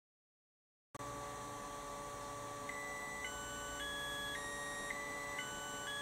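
After about a second of silence, a steady hum with a faint whine. From about two and a half seconds in, a Makita 18V rapid charger plays its end-of-charge tune: electronic beeping notes stepping up and down about twice a second, signalling that the 1.5 Ah battery is fully charged.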